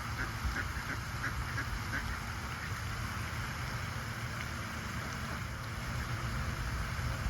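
Ducks quacking: a quick run of short calls in the first two seconds, over a steady low background rumble.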